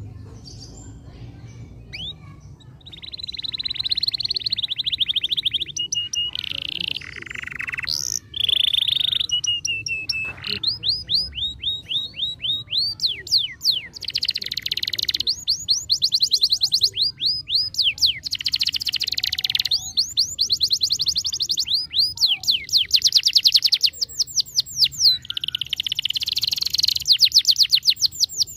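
Canary singing: a few scattered chirps, then from about three seconds in a continuous song of fast trills and rapidly repeated notes, changing to a new phrase every few seconds.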